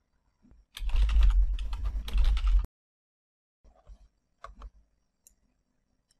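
Typing on a computer keyboard: a fast run of keystrokes lasting about two seconds, followed by a few separate clicks.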